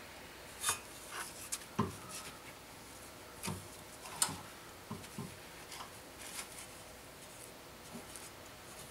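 Faint scraping and scattered sharp clicks of a metal pick being worked around and under a rubber tie rod boot, breaking the boot loose where it has stuck to the tie rod.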